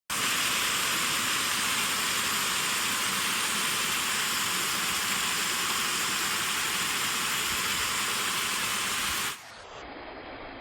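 Waterfall water rushing as a steady, loud hiss. About nine seconds in it drops suddenly to a quieter, duller rush.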